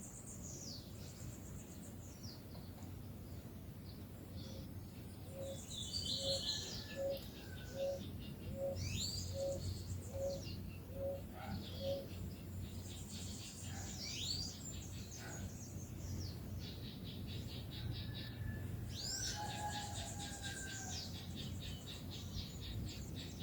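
Several wild birds singing and calling together, with high sweeping whistles and rapid trills. For about seven seconds in the first half there is also a low, evenly repeated series of about ten soft notes, about one and a half a second.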